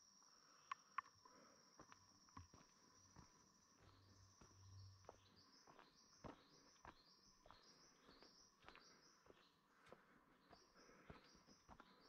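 Faint footsteps on a rainforest walking track, as scattered soft clicks. A steady high insect-like whine stops about four seconds in, and a high call takes over, falling in pitch and repeating about twice a second almost to the end.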